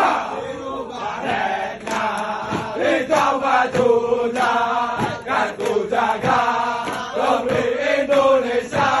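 Brimob police troops chanting a yel-yel, a loud rhythmic group chant shouted in unison by many men, with short sharp stamps landing in time with it.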